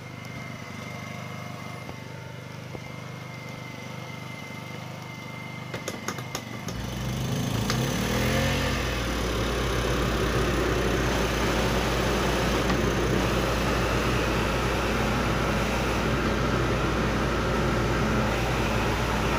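Rooftop RV air conditioner switched on at its ceiling knobs: a few clicks about six seconds in, then the blower and compressor spin up with a rising hum and settle into a steady, loud rushing of air. Before it starts, the Honda 2000 generator powering it hums steadily.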